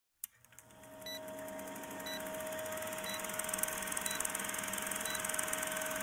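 Vintage film countdown leader sound effect: a running film projector's steady rattle with hiss, crackle and a low steady hum, and a short high beep once a second. It opens with a sharp click.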